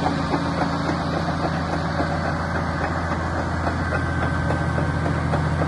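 Komatsu D85EX-15EO bulldozer's diesel engine idling steadily.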